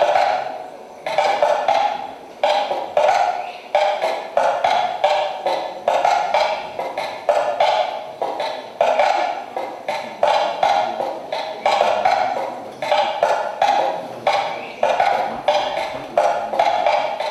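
Repeated percussive knocks, each with a short mid-pitched ring that dies away, at about two a second in a slightly uneven rhythm.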